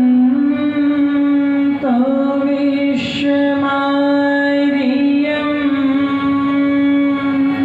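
A woman singing a Hindi devotional song in long held notes, accompanied by harmonium.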